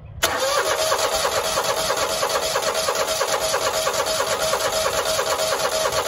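A Kohler mower engine cranked over by its electric starter, with a steady even rhythm and a steady whine, starting a moment in. It turns over without catching: no fuel is coming from the fuel pump, which the mechanic takes for a failed pump.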